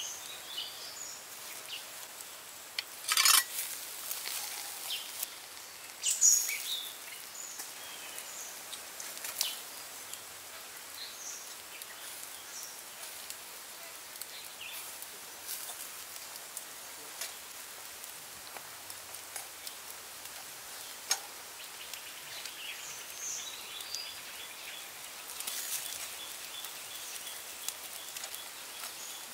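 Birds chirping over a quiet outdoor background, broken by two sharp knocks about three and six seconds in as the wire grill grate and the duck are handled over the charcoal, and a few lighter ticks later.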